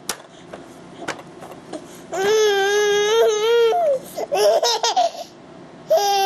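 A young child's high-pitched voice: a long held cry-like squeal, then a choppier broken stretch, then another long held squeal starting near the end. It is preceded by a couple of sharp clicks.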